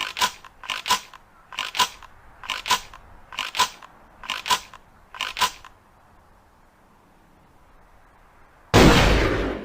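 Ithaca Model 37 pump-action shotgun: seven quick pairs of sharp metallic clicks from the gun's action being handled, at a steady pace. This is followed by a few seconds of quiet and then a single loud shotgun blast near the end, with a long ringing decay.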